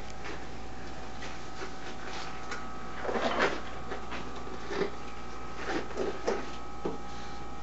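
Disposable gloves being pulled on and tugged into place: a handful of short rubbery rustles and snaps, the loudest about three seconds in. A steady hum runs underneath.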